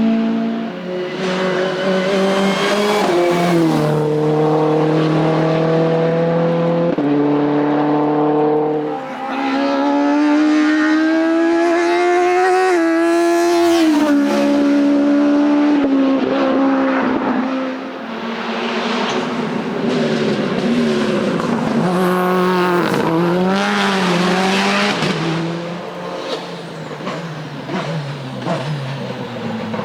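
Race car engine at full throttle on a hillclimb course, its pitch climbing and then dropping in steps through several gear changes. In the second half there are quicker drops and rebounds in engine speed, as when braking and downshifting for corners.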